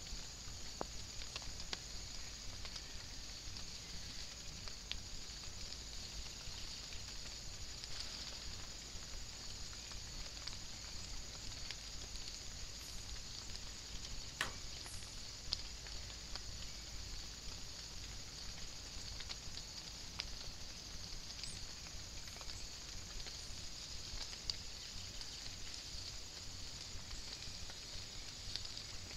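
Light rain pattering: scattered small ticks of drops over a steady hiss, picked up by a trail camera's microphone.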